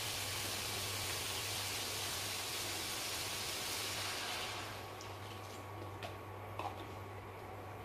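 Meat and vegetables sizzling in a hot wok. About four and a half seconds in, the sizzle dies down sharply as broth is poured in, and a few light clicks follow.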